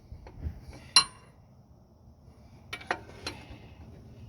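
Metal hand tools clinking against engine parts: one sharp ringing clink, then a few lighter clicks.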